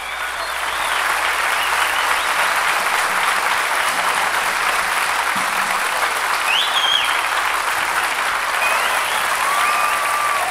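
Live concert audience applauding at the end of a song, the clapping swelling over the first second and then holding steady, with a few brief high calls from the crowd on top.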